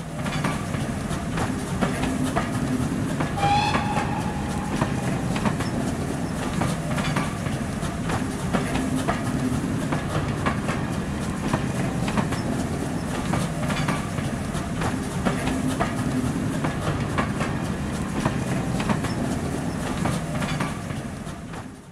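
Railway carriages rolling past close by: a steady rumble with sharp wheel clicks over the rail joints, and a brief high tone about three and a half seconds in. Fades out at the end.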